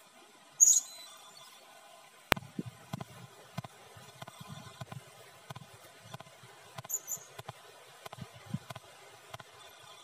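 Blue-crowned hanging parrot (serindit) giving short, very high, squeaky calls: a loud one about half a second in and a quick pair around seven seconds. A sharp click comes a little after two seconds, followed by faint, scattered low rustling and knocking.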